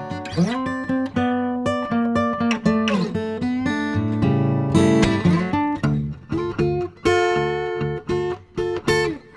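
Acoustic guitar music: plucked and strummed notes, with several notes sliding in pitch.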